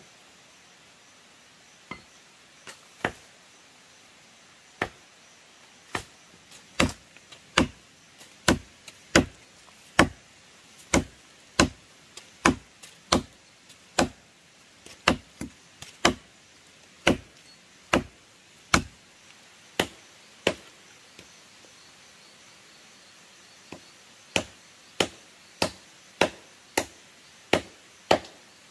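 A blade chopping into wood in repeated sharp strikes, about one to one and a half a second. The strikes are sparse at first, then steady; they pause for a few seconds near the end and then resume.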